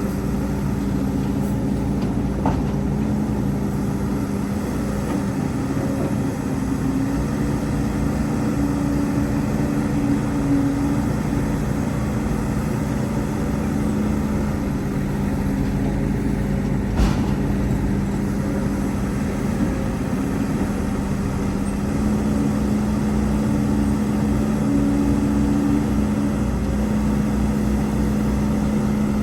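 Heavy diesel engine of a Hidromek HMK230LC hydraulic excavator running steadily at work, with a couple of brief knocks.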